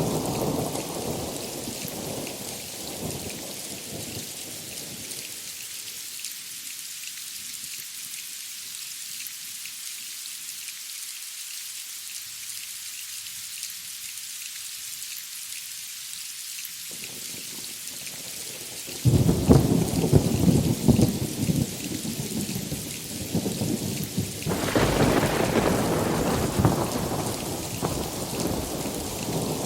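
Steady heavy rain with thunder. A low rumble dies away over the first few seconds. About two-thirds of the way in a sudden loud thunderclap breaks and rolls on, and a second peal swells a few seconds later.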